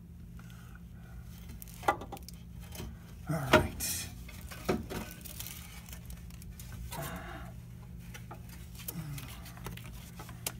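A few metal clanks, knocks and scrapes as the cast iron exhaust manifold on a 5.3 Vortec V8 is worked loose and lifted out of the engine bay, the loudest about three and a half seconds in, over a steady low hum.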